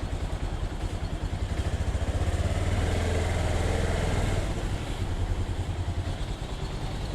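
Bajaj Pulsar 220F single-cylinder motorcycle engine running with a fast, even low pulse. It grows louder for a couple of seconds in the middle, then eases back.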